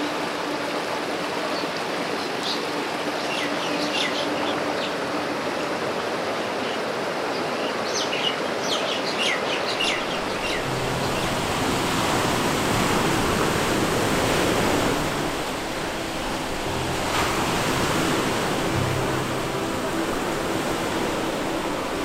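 Rushing mountain stream tumbling over rocks, with a few short bird chirps. About halfway through it gives way to ocean waves breaking and washing up a sandy beach.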